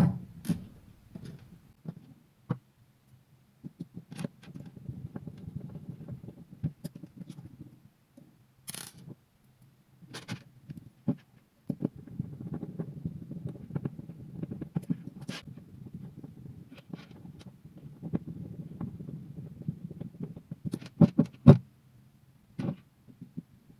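Handling noise from reassembling an RC plane's electric ducted fan (EDF) unit by hand: irregular small clicks, taps and scrapes of its plastic and metal parts, with a quick run of sharper clicks about 21 seconds in.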